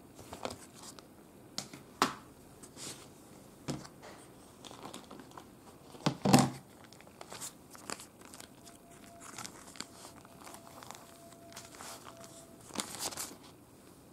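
Baking paper crinkling and rustling as it is handled and peeled away from a freshly steamed cake, with scattered clicks and taps from a plastic container lid. The loudest rustle comes about six seconds in.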